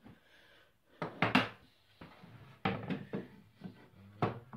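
Knocks and clatter of a hammer and a wooden plaque board being picked up, turned over and set down on a table saw's metal top: a loud double knock about a second in, then a few lighter knocks.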